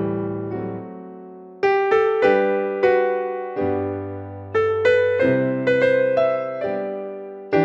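Background piano music: notes and chords struck and left to ring and fade. The playing thins out to a lull about a second in, then picks up again with fresh chords.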